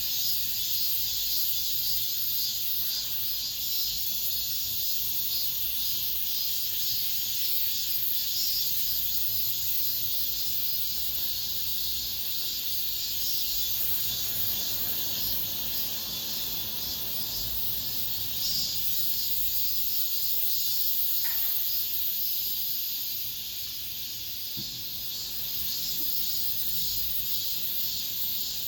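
Cicadas singing in a steady, high buzzing chorus with a fast pulsing texture, easing slightly about four-fifths of the way through.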